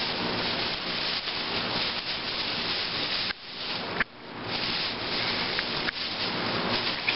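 Rough rubbing and scraping noise of a handheld camera being handled, fingers and fabric brushing over its microphone, with two short sudden drops in level a little over three and four seconds in.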